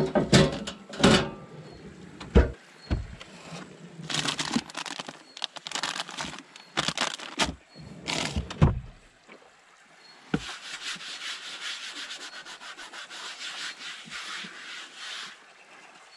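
Gear being packed into the back of a car: a run of sharp knocks and thuds as items are shifted on the wooden platform and drawer. Then a long dry scraping rub of something sliding across wood, lasting about five seconds.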